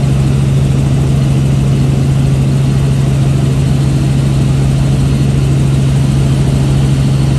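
Helicopter in flight: a loud, steady drone with a strong low hum that does not change.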